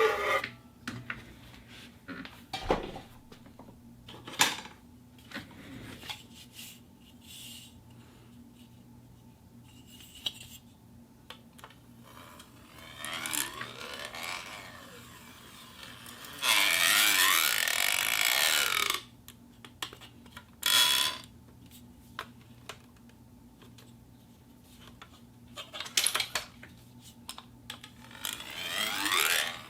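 Plastic cup being handled: scattered taps and clicks, with several crinkling, squeaky bursts, the longest about two seconds past the middle.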